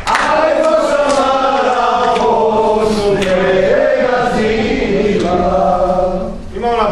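Crowd of many voices singing together in unison, with long drawn-out notes.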